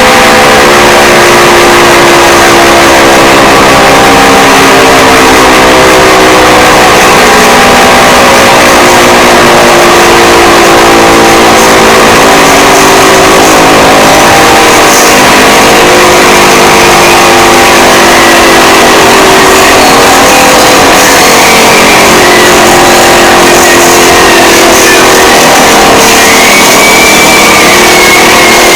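Mock emergency alert system alarm: loud, heavily distorted electronic alarm tones, several at once, stepping in pitch over a harsh buzzing noise at full volume.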